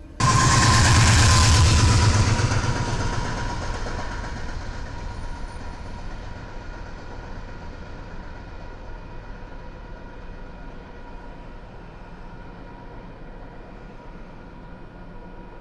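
Diesel freight locomotive working hard under heavy throttle, pouring out black exhaust smoke. The engine comes in loud with a fast low pulsing, then fades over about ten seconds to a steady low rumble.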